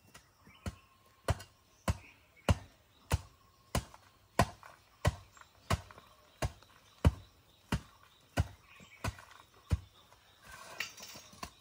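A long-handled hoe chopping into a dirt path to dig a pit, in a steady rhythm of about one and a half strikes a second, stopping near the end.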